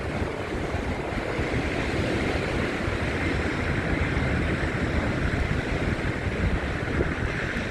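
Wind blowing over a phone's microphone: a steady rushing noise with an unsteady low rumble.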